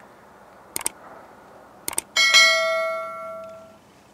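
Subscribe-button animation sound effect: two quick double mouse clicks, then a single bell-like ding that rings and fades over about a second and a half.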